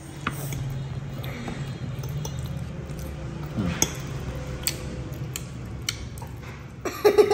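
A metal fork scraping and clicking on a ceramic plate as food is scooped up, a few light taps scattered through, over a steady low hum.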